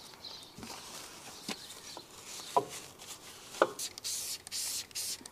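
Detailing brush scrubbing a car's alloy wheel and brake caliper, a scratchy hiss of bristles, with three sharp knocks about a second apart as the brush and tools hit the wheel.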